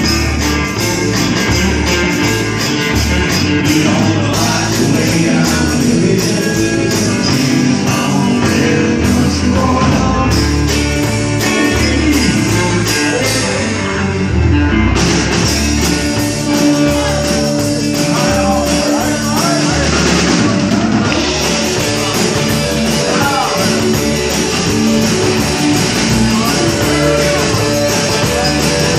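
Loud rock music from a band, with guitar, a pulsing bass line and some singing, playing steadily throughout.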